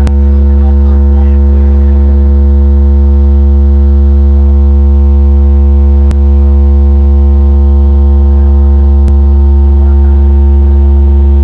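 A wall of car-audio subwoofers in a pickup bed plays a single steady, very loud deep bass tone with a buzzing edge, at full power for a sound-pressure (SPL) measurement that reads about 141.7 dB on the meter. The tone stops abruptly at the end.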